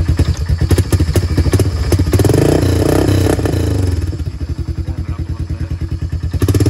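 1994 Honda Fourtrax 300's single-cylinder four-stroke engine running through a Ford tractor muffler fitted as a replacement exhaust. It idles in even pulses, is revved up and back down about two seconds in, and starts to rev again near the end.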